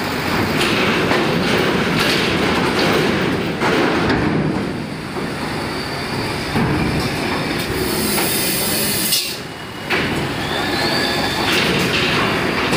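Trucks rolling onto a ferry over its steel loading ramp: engines running under repeated metallic clanking and rattling of the ramp plates. A short hiss comes about eight seconds in.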